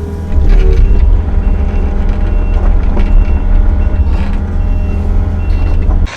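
SK55 mini excavator's diesel engine running hard under load, getting louder about a third of a second in, with a few clunks from the machine at work. A short high beep repeats in the background every second or so. The sound cuts off suddenly near the end.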